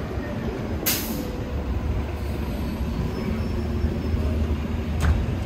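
Steady low rumble of city street traffic, with a short hiss about a second in and a brief click near the end.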